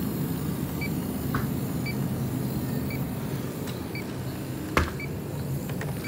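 Electronic refrigerant leak detector giving short high beeps about once a second while it reads zero, no refrigerant found, over the steady hum of supermarket freezer cases. A single knock about five seconds in.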